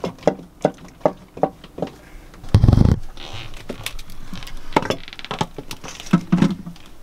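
Tool and metal-part handling on a marine diesel generator being dismantled. A run of light clicks about every half second, then a dull thump at around two and a half seconds, then more scattered clicks and knocks.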